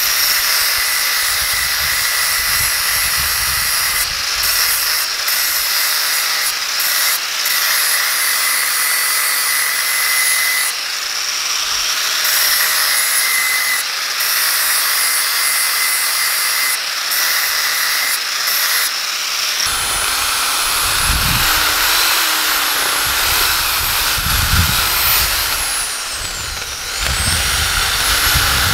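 Angle grinder with a flap disc running against a steel sledgehammer head, a steady high whine over hiss. About twenty seconds in it gives way to a corded electric drill working inside the hammer head's eye, its pitch wavering.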